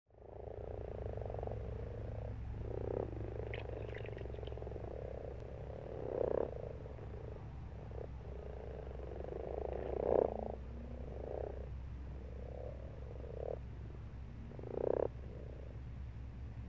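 A chorus of frogs croaking in a pond: a continuous low, purring croak, with about six louder, nearer croaks standing out every two to four seconds. A steady low hum runs underneath.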